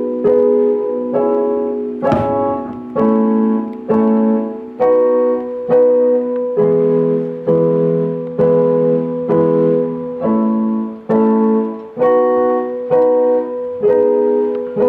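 Piano playing a run of chords, a new chord struck about every second and left to ring and fade.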